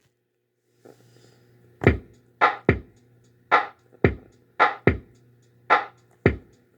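A simple repeating beat of kick- and snare-like hits, about two a second, starting about two seconds in over a low steady hum.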